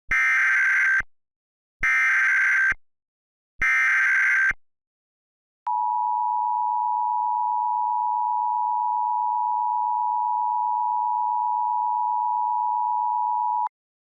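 Emergency Alert System tones. The SAME header comes first as three one-second bursts of warbling digital data, then the two-tone attention signal holds steady for about eight seconds before cutting off.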